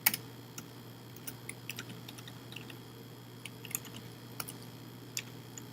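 Scattered, irregular keystrokes on a computer keyboard as code is typed, with a steady low hum behind.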